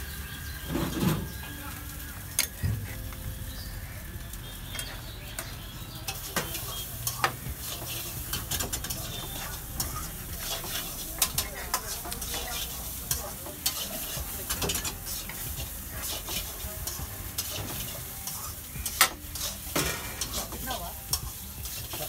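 Dosa sizzling on a hot flat griddle (tawa), a steady hiss broken by frequent sharp clicks and scrapes of a metal spatula on the plate as the dosa is worked and rolled, with one louder clack near the end.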